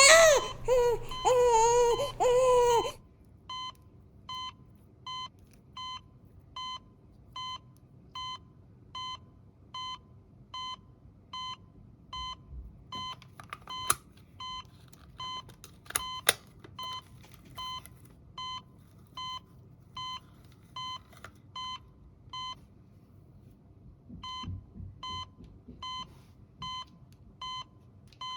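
An electronic toy's recorded baby cry plays for the first few seconds. The toy then beeps steadily, short identical beeps about every 0.7 s, pausing briefly near the end before starting again. A couple of sharp plastic clicks come in the middle.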